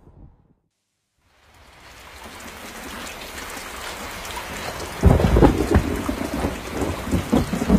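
Heavy rain fades in after a moment of silence and grows steadily louder. About five seconds in, a loud rumble of thunder breaks in and goes on under the rain.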